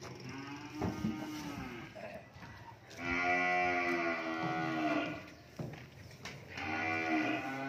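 Cattle mooing: three calls, the middle one the loudest and about two seconds long, with a few knocks between them.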